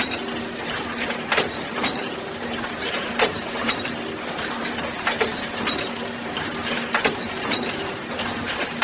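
Box-factory machinery running: a steady mechanical din with a low hum that comes and goes, cut by sharp clacks at irregular intervals, about one or two a second.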